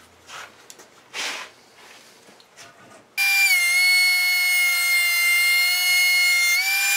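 Benchtop thickness planer running with a loud, high, steady whine that starts abruptly about three seconds in. The pitch dips slightly as it takes a surfacing cut off a thick board and lifts again near the end as the board clears. Before it starts there are only a few faint knocks of handling.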